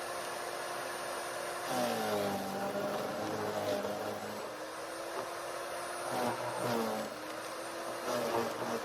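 GreenSweep electric wood chipper's motor running with a steady hum; several times its pitch drops sharply and climbs back as branches are fed in and chipped.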